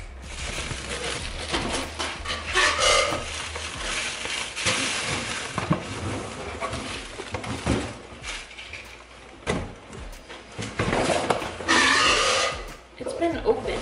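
Household items being handled and packed into cardboard moving boxes: irregular rustling, scraping and knocks, with small clinks.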